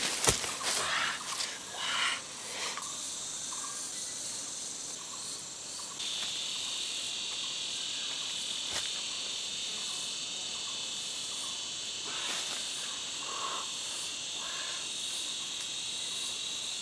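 Steady high-pitched insect chorus in the forest, getting louder and fuller about six seconds in, with a few brief rustles and knocks in the first couple of seconds.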